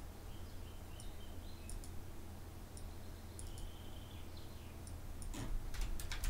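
Computer mouse clicking now and then, with a quicker run of clicks near the end, over a faint low hum.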